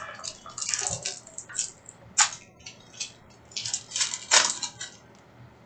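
Trading cards being handled and sorted: a run of short, crisp rustles and clicks, the two sharpest about two seconds in and about four and a half seconds in.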